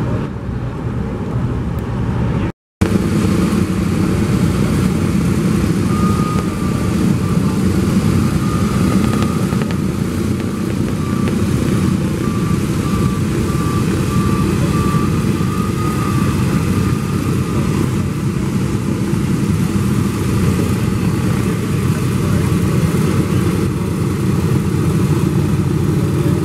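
A Boeing B-17 Flying Fortress taxiing on its four Wright R-1820 Cyclone radial engines: a loud, steady rumble of propeller-driven piston engines. The sound cuts out briefly at about two and a half seconds.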